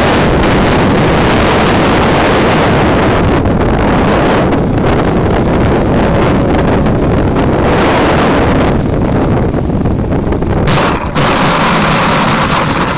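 Loud, steady wind rush buffeting the onboard camera microphone of an RC model plane in flight, with a brief dip about eleven seconds in.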